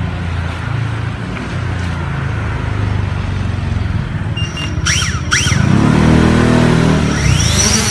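Fimi X8 SE quadcopter's motors and propellers running on a raised hand with a low hum, then spinning up with a rising pitch about five and a half seconds in as the drone takes off.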